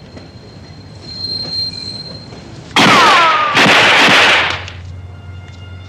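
A train rushes past close by in two loud surges about three seconds in, with a metallic wheel squeal sliding down in pitch during the first surge.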